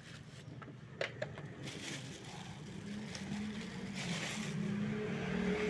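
A steady motor hum that builds up and grows louder over the last few seconds, after a couple of handling clicks about a second in.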